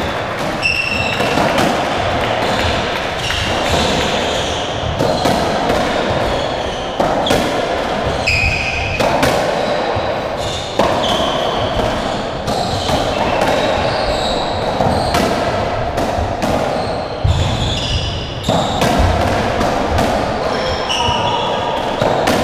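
Racketball rally: the rubber ball is struck by rackets and cracks off the walls and floor at uneven intervals, a few times a second at most. Short, high squeaks of court shoes on the wooden floor come in between the hits.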